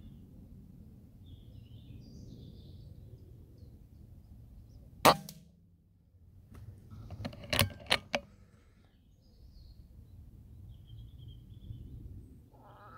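A single sharp shot from a Weihrauch HW100 pre-charged air rifle about five seconds in, with a short low ring after it. About two seconds later come a few quick clicks and knocks, which fit the rifle's sidelever being worked to chamber the next pellet.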